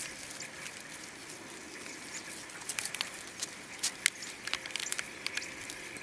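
Dry grass stalks and twigs crackling and snapping in scattered sharp clicks as someone moves through dry scrub, the clicks growing more frequent about halfway in, over a faint steady high hum.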